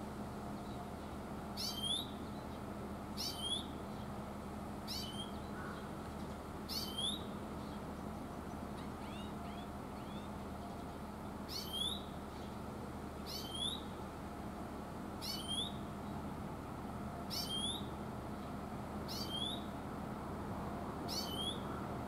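Oriental greenfinch (kawarahiwa) calling, a drawn-out 'chuiin' repeated about every two seconds, about ten times.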